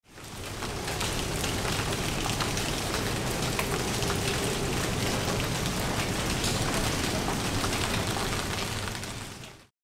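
Steady rain falling on leafy tropical vegetation: a dense, even patter of drops. It fades in over the first second and cuts off abruptly near the end.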